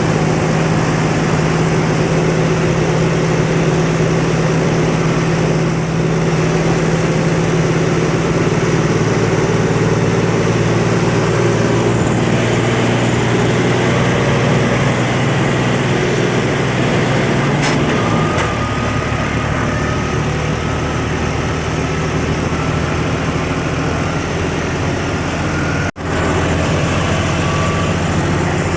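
Heavy vehicle engine running steadily, heard close up; its note drops to a lower pitch about two-thirds of the way through. There is a very brief dropout near the end.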